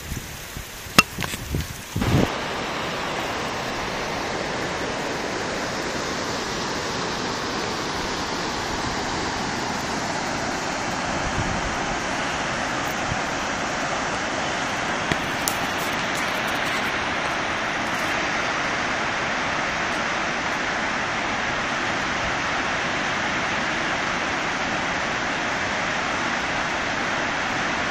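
Steady rushing of a mountain torrent tumbling over boulders. It starts abruptly about two seconds in, after a few knocks and clicks.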